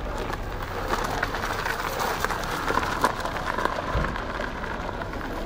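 Battery-electric go-kart driving over gravel-strewn asphalt, its tyres crackling over the loose stones.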